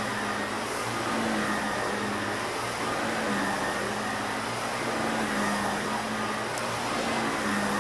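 Purple Shark upright vacuum cleaner running steadily while it is pushed back and forth over carpet: a constant motor drone with a low hum.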